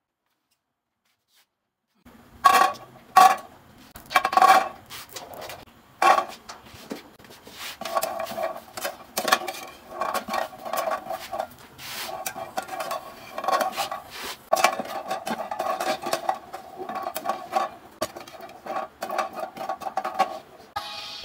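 Jackfruit seeds clattering in a dry aluminium frying pan as they are turned with a metal slotted spatula for roasting: scraping and clinking of metal on metal, with the pan ringing. It starts about two seconds in with a few loud knocks.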